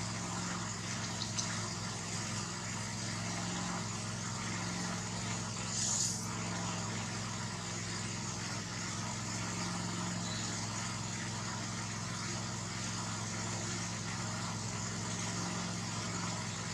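A steady low motor hum, with a brief hiss about six seconds in.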